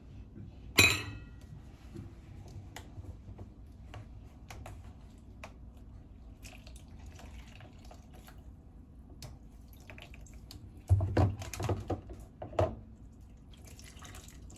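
A sharp metal clink that rings briefly, about a second in, as a stainless steel canning funnel is lifted off a glass quart jar. After that come light scattered ticks of kitchen handling, then a handful of louder knocks and clatter near the end.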